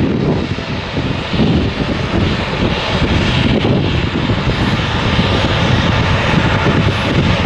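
Embraer E-Jet airliner's twin turbofan engines running loud as the jet rolls out and slows on the runway just after touchdown. A steady rushing noise with a flickering low rumble.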